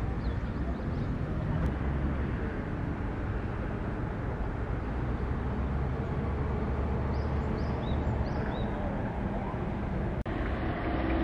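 Outdoor park ambience: a steady low rumble with a few short high chirps about seven to eight and a half seconds in, and a brief dropout just after ten seconds.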